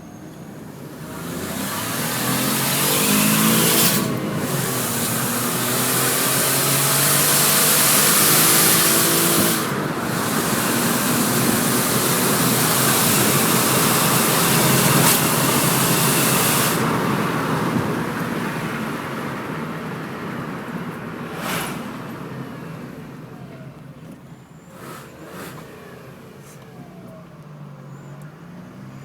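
Colt car with an exhaust turbo whistler accelerating hard, its engine note rising under a loud airy whistling hiss, with two short breaks at gear changes. The sound then fades away as the car moves off.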